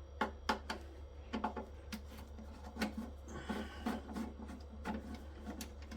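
Irregular light clicks and taps of small parts and components being handled while a solar inverter is taken apart, over a steady low hum.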